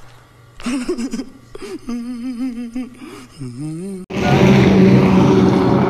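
A short comic film clip: a man's voice with a gasp, then a warbling, wavering tone. About four seconds in it cuts suddenly to loud roadside noise, a vehicle engine running steadily.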